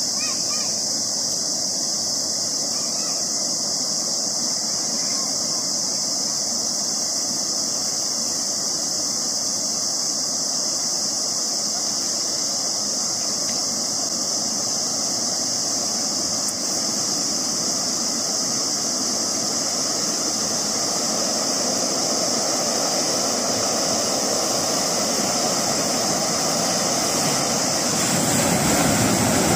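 Steady rushing rumble of an oncoming flash flood in a wadi, under a steady high hiss. It grows louder over the last several seconds and louder again near the end, as muddy floodwater pours over a stone weir.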